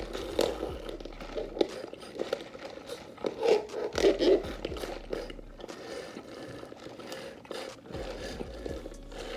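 Close-up eating sounds: chewing and crunching food, with wet mouth clicks and some rustling, busiest about halfway through.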